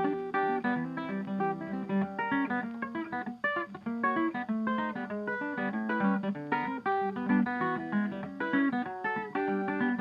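Background music on acoustic guitar: quick plucked notes, continuous.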